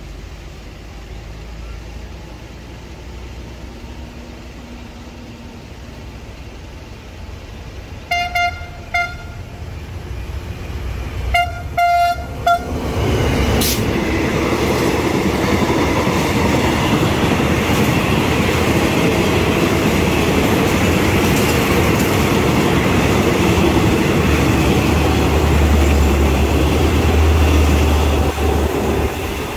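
Diesel train horn giving two short toots, then a quick cluster of short blasts about three seconds later, as a passenger train comes up alongside; the train then passes close by on the next track, a loud steady noise of its coaches rolling past, with a deeper rumble joining late on.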